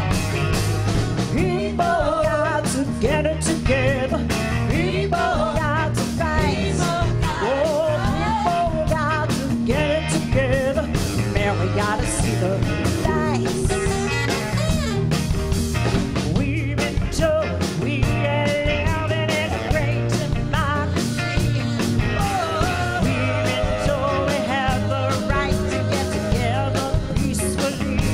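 Live rock band playing a song: a woman singing lead with backing singers over keyboard, a steady bass line and a drum beat.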